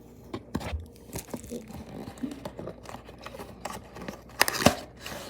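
Tape being peeled off a toy's packaging box, with crinkling, tearing and scattered sharp clicks of handling; the loudest cluster of handling noise comes near the end.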